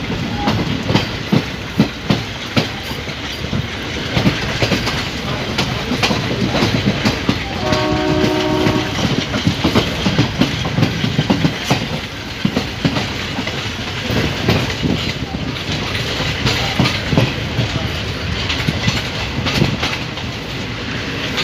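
Passenger train coach running at speed, heard from on board: a steady rumble with wheels clicking over rail joints. About eight seconds in, a train horn sounds once for just over a second.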